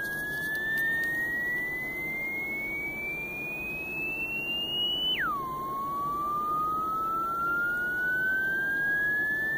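Telephone test line's tone heard through a handset earpiece: a single pure tone sweeping slowly upward in pitch, dropping sharply about five seconds in, then sweeping upward again.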